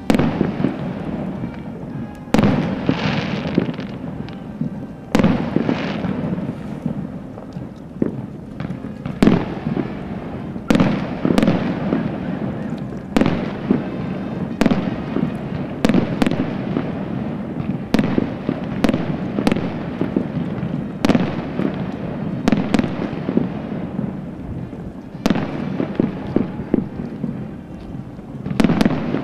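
Aerial fireworks display: shells bursting one after another, a sharp bang every second or two, with crackle and rumble filling the gaps, over music.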